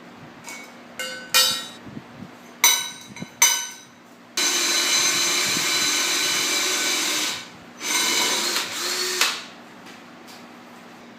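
Steel parts clank and ring a few times, then a handheld power tool runs for about three seconds, stops, and runs again for about a second and a half.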